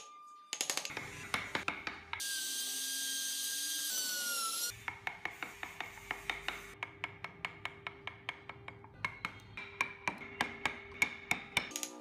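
Steel carving chisel cutting into a wooden car carving: a quick run of sharp taps, about three or four a second. About two seconds in, a small power tool whirs for about two and a half seconds and winds down as it stops.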